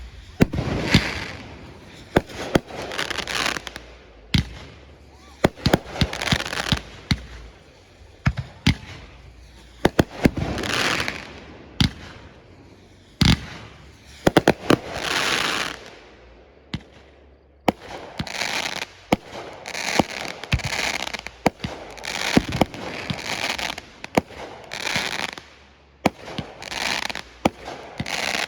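Fireworks display: a rapid string of sharp bangs from aerial shells, many of them followed by a hissing swell lasting about a second.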